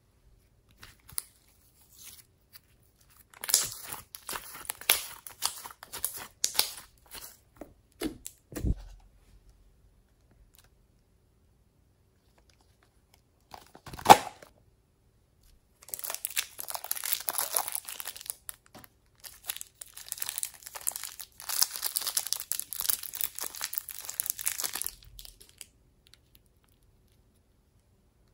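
Thin plastic wrappers being crinkled and torn open by hand, in long stretches of dense crinkling in the second half. Earlier there are scattered clicks and crackles, and about halfway through a single sharp click, the loudest sound.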